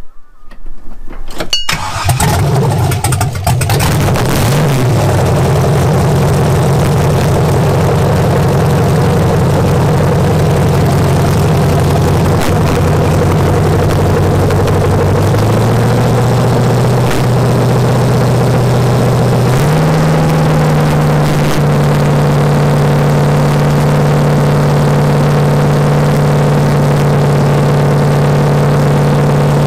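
Rebuilt 5.3-litre LS V8 (L59) on a Holley 750 double-pumper carburettor starts about a second and a half in and settles into a loud, steady run. Its speed steps up twice, about halfway through and again a few seconds later. The builders find it running very lean.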